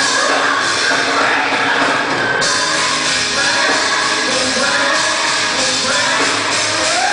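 Live gospel singing through a PA system over a loud band, with voices held and sliding across notes and no break in the music.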